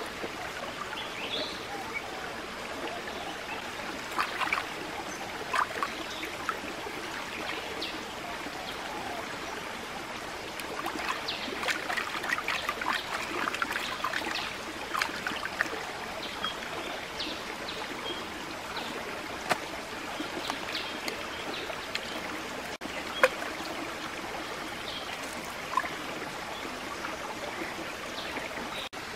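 Shallow stream trickling over rocks, with splashing and sloshing from hands washing food in the water, busiest about halfway through. One sharp click later on.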